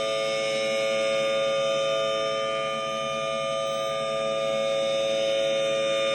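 Federal Signal Thunderbolt 1000T outdoor warning siren sounding a loud, steady tone at full speed, with no rise or fall in pitch. Its loudness swells and dips slightly.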